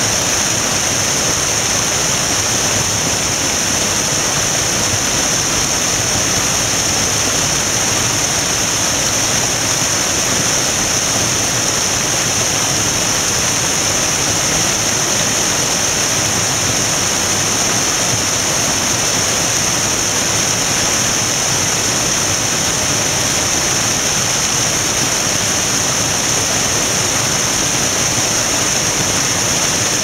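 Waterfall pouring down a rock face and crashing into churning water below: a loud, steady rush with a strong hiss.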